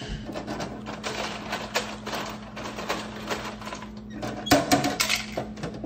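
Ice cubes clattering and clinking as they are scooped and dropped into a measuring cup, a rapid irregular run of clicks with a louder clatter a little past halfway, over a steady low hum.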